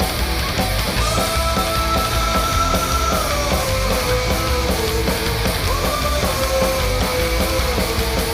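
Heavy rock music with a dense, driving beat and a held lead melody that slides down in pitch.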